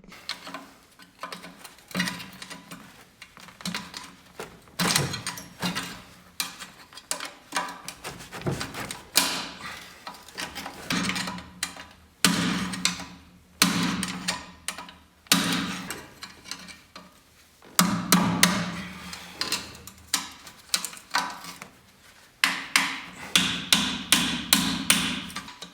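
Hammer blows on the wheel loader's rusted exhaust assembly, coming in irregular runs of sharp metal strikes, some leaving a short ringing tone, as the rusted parts are knocked loose.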